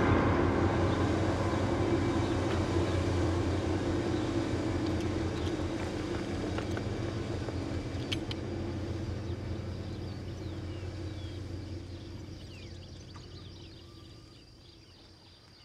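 Military vehicle's engine running with a steady, pulsing low drone. It starts suddenly and fades away over the last few seconds, as if the vehicle is moving off.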